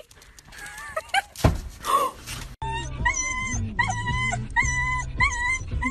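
A dog giving a run of short, high-pitched yips and whines, about two a second, starting about halfway through, over music.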